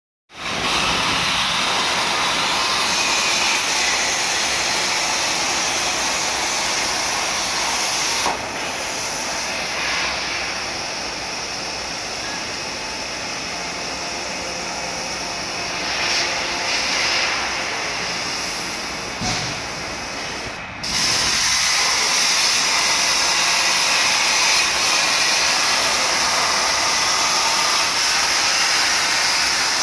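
Cutting torch of a CNC steel-plate cutting machine running, a steady hissing rush. It turns somewhat quieter and duller about 8 seconds in and comes back up abruptly about 21 seconds in.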